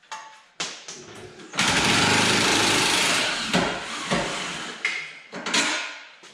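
Impact wrench hammering on a bolt at the rear suspension for about a second and a half, starting about a second and a half in and then tailing off. Short clanks of tools and metal come before and after.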